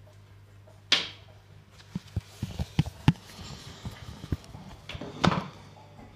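Steady low hum of reef-aquarium pumps with a run of sharp knocks and clicks over it: one loud knock about a second in, a quick cluster of taps around two to three seconds, and another loud knock near the end.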